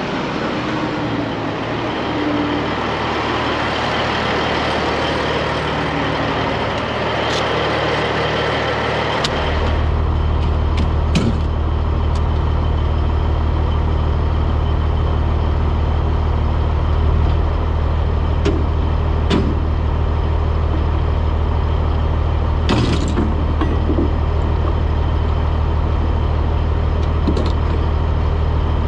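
Heavy truck's diesel engine running. For about the first nine seconds it is under a loud rushing hiss, which then cuts off and leaves a steady low engine drone, with a few sharp clicks and knocks.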